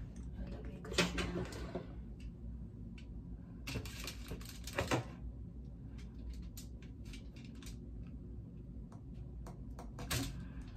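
Hand-held metal soil blocker being worked in compost: two longer scraping rustles as it is pushed into the soil, then a run of light clicks as its spring plunger pushes the blocks out onto a tray.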